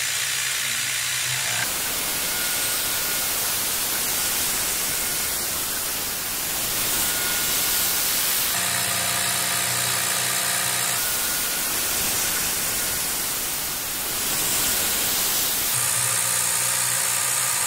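CNC milling machine with its end mill cutting aluminium under a Fog Buster air-mist coolant spray: a steady hiss of spray and cutting noise, with a steady motor hum showing through in a few stretches.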